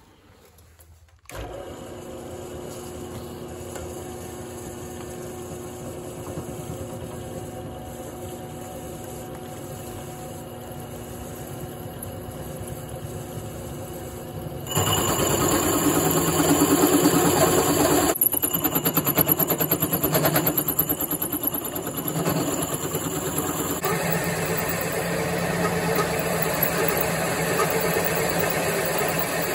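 Drill press motor starting about a second in and running steadily. About halfway the hole saw bites into a thick disc of home-cast scrap aluminum, and the sound grows louder and coarser with the cutting, easing off briefly a few seconds later before carrying on.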